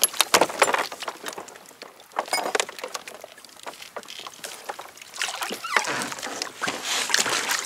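Water sloshing and trickling against a kayak hull, with scattered short knocks and rattles, quieter in the middle and busier again near the end.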